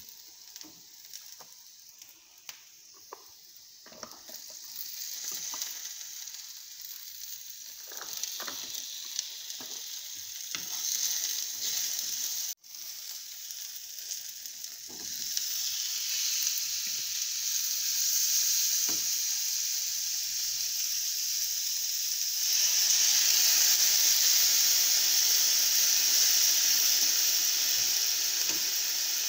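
Chopped onions and vegetables sizzling in oil in a frying pan, with a wooden spoon knocking and scraping against the pan as they are stirred. The sizzle grows louder about halfway through and again near the end as chopped tomatoes go into the pan.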